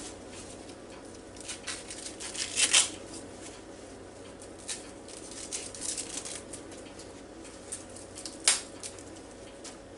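Ears of corn being shucked by hand: green husks tearing and rustling as they are stripped off, in irregular bursts, with the sharpest rips about two and a half seconds in and again near the end.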